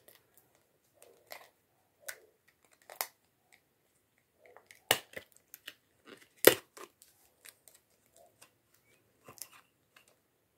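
Fingers prying at and handling a stuck clear plastic palette case: scattered small clicks and taps, and two sharp plastic snaps about five and six and a half seconds in, the loudest sounds, with faint rustling between.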